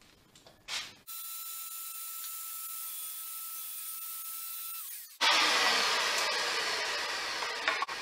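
Table saw running and crosscutting fence-board side pieces at an 18.5-degree miter. A steady high whine starts about a second in and stops abruptly near five seconds. A louder burst of saw noise follows and slowly fades away.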